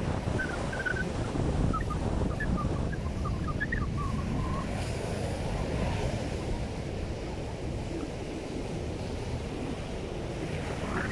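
Surf breaking on a sandy beach, with strong wind buffeting the microphone. A run of short high chirps sounds over the first few seconds.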